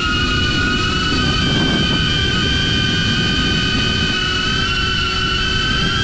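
DJI Avata FPV drone with Axis C175 motors in flight: a steady, high-pitched motor and propeller whine, over a low rumble of strong wind.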